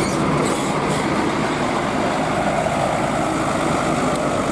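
Tour bus engine running as the coach moves past, a steady mechanical rumble under continuous outdoor noise.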